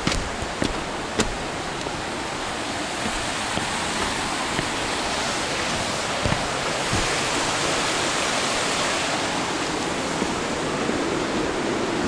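Steady rushing of a stream running down a rocky gully, with a few sharp clicks in the first second or so.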